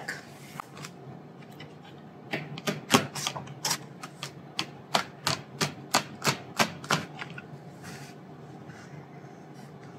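A quick run of light, sharp clicks, about three a second, lasting several seconds, then stopping.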